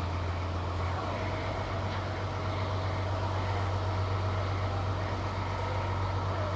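Boat engine running steadily with a low drone while under way, with the hiss of water and wind over it.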